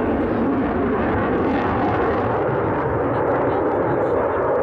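Eurofighter Typhoon's twin EJ200 turbofan engines giving a loud, steady jet roar as the fighter flies its display overhead.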